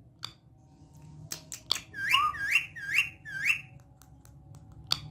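Talking parrot giving four short rising whistles in quick succession, after a few sharp clicks.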